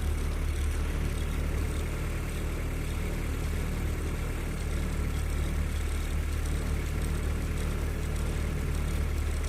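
Safari jeep's engine idling steadily with a low hum, left running while the vehicle stands still.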